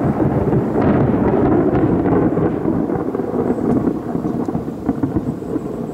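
Thunder: a long rumble that comes in suddenly, is loudest for the first two or three seconds, then slowly dies down.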